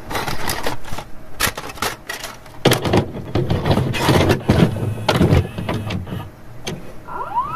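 VHS-style intro sound effects: a run of irregular crackling static and glitch clicks, with a rising glide near the end.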